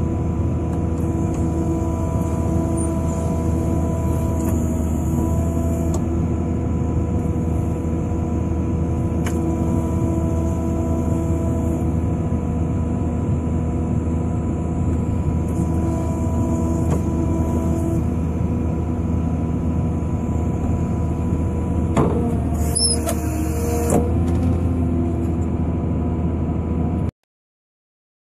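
Volvo EW160 wheeled excavator's diesel engine and hydraulics running steadily while its hydraulic mowing basket cuts ditch-bank grass. A few sharp clicks and knocks come around three-quarters of the way in, and the sound cuts off suddenly about a second before the end.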